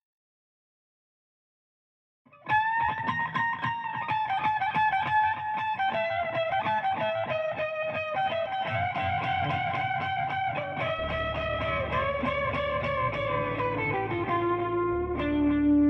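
About two seconds of silence, then guitar music starts: fast picked notes under a slowly descending melody, with low bass notes joining about eleven seconds in.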